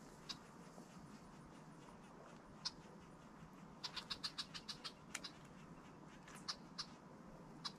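Faint short, high-pitched clicking calls of small animals, single ones here and there and a quick run of about ten a little past the middle.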